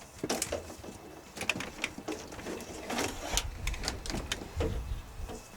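Old plastic T-molding being pulled out of the channel in a countertop edge: an irregular run of crackling, scraping and short squeaks with small clicks.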